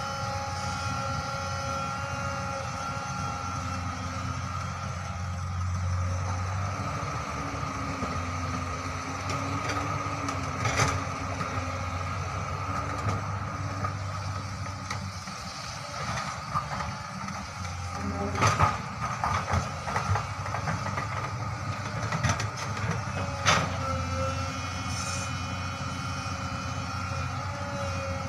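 Hydraulic excavator's diesel engine running steadily with a whine, working as it digs and swings its bucket. Sharp knocks and thuds come once about a third of the way in and several times in the last third.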